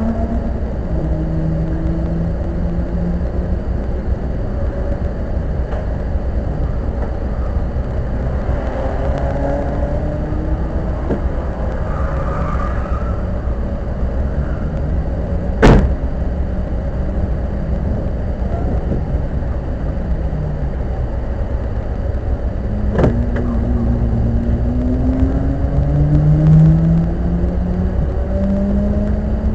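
Car driving, its engine note rising in pitch again and again as it accelerates through the gears over steady road rumble. Two sharp knocks stand out, the loudest about halfway through and a smaller one about three quarters of the way in.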